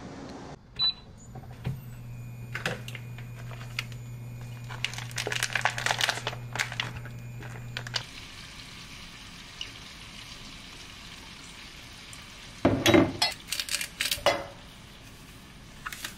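Kitchen prep sounds: a metal spoon clinking and scraping against a glass measuring jug and a bottle being handled as oil and seasoning are mixed. A steady low hum runs through the first half, and a burst of sharper clinks near the end is the loudest part.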